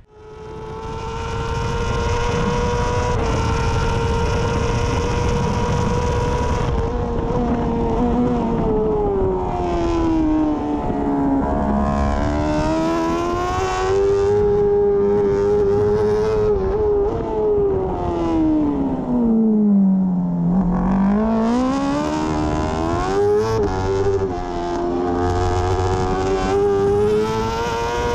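BMW S1000RR superbike's inline-four engine at racing revs on a flying lap: held near the top for the first six seconds, then falling in pitch as it is slowed and shifted down for a corner about twelve seconds in, and far lower for a slower corner about twenty seconds in, before climbing again through the gears under hard acceleration. Wind rushes steadily across the bike.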